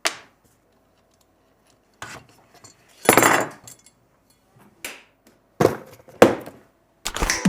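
Camera rig hardware being handled: a series of separate knocks and clinks, with a longer scraping rustle about three seconds in.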